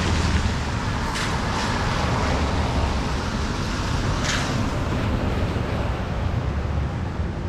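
Car driving: steady road and engine rumble, with a couple of brief higher hisses.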